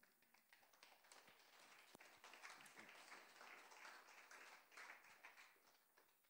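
Very faint, dense crackling patter of many small clicks that builds for a couple of seconds, holds, then fades away.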